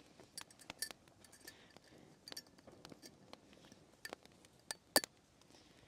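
Faint, irregular crackles and pops from a small wood fire burning in a Firebox folding stove under a cast-iron pot, with the sharpest pop about five seconds in.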